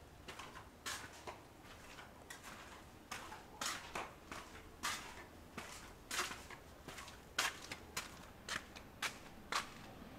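Footsteps of someone walking on pavement, short sharp steps about two a second, over a faint low hum.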